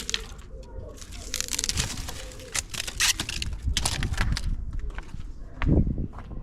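Backyard trash being pulled up and handled, with irregular crackling and rustling, while wind buffets the microphone with a low rumble. A heavy low thump comes near the end and is the loudest moment.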